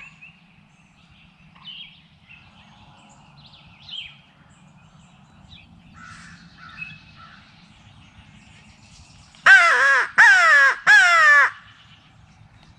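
Crow locator call blown three times in quick succession, giving loud caws that fall in pitch, to try to make a tom turkey gobble back. Faint bird chirps sound before it.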